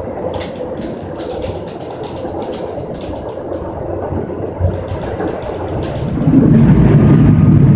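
Metra commuter train car running on the rails, heard from inside the car: a steady rumble with a quick run of clicks early on, swelling into a louder low rumble about six seconds in.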